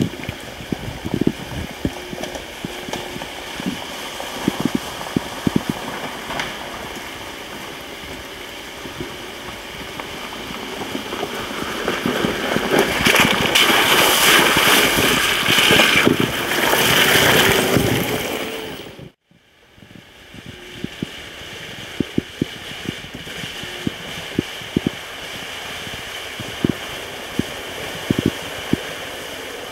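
Electric off-road golf cart driving along a rough trail, with scattered knocks from the ground under its wheels. About halfway through its tyres churn through a wet, muddy patch with a rushing splash that builds for several seconds, then cuts off suddenly.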